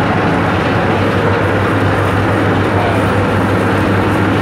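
River ferry's engine running with a steady low drone, heard on board under a constant rushing noise.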